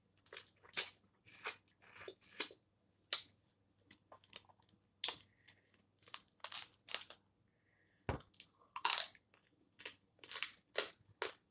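Close-miked eating of boiled snow crab legs: shells cracking and snapping as they are bitten and broken open, mixed with chewing, in irregular sharp crunches about two a second. A dull thump about eight seconds in.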